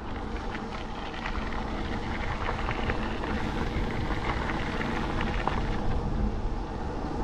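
Wind buffeting the microphone of a GoPro mounted on a mountain bike's handlebars while the bike rolls along a gravel and paved path, with many small clicks and rattles from the riding.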